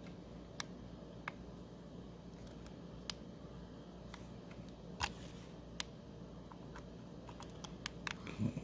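Scattered small clicks and taps from handling a 3D printing pen, a few spread out, then several in quick succession with a soft knock near the end.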